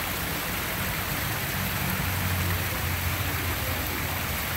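Small waterfall spilling over a rock ledge into a stony creek channel, a steady splashing rush of water.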